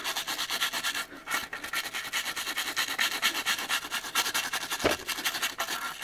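Stiff nylon-bristled brush scrubbing gun cleaner into the pressed checkering of a walnut rifle stock, working out leftover paint and stripper. It makes rapid back-and-forth scratchy strokes, with a short break about a second in and one light knock about five seconds in.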